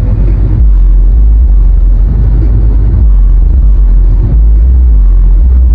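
Loud, steady low rumble of a car driving, heard from inside the cabin: road and engine noise.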